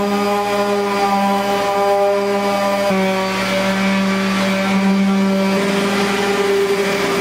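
Electric random orbital sander running steadily against the primed surface as it sands down filled low spots, a steady motor hum whose pitch shifts slightly a couple of times.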